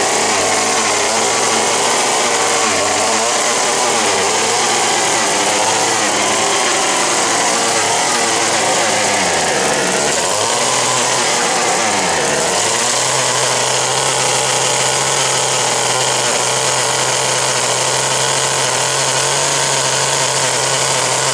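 1958 Little Wonder hedge trimmer's 1 hp O&R two-stroke engine running while cutting a hedge. Its pitch sags twice around the middle, then holds steady for the last several seconds.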